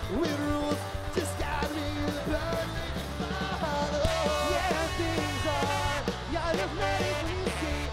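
Ska-punk band playing live: horns over electric guitar, bass guitar and drums.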